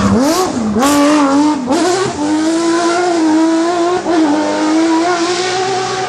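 Porsche 997 GT3 rally car's flat-six engine accelerating hard out of a corner, its pitch climbing and dropping twice in quick upshifts in the first two seconds, then holding a steady, slowly rising note as it pulls away.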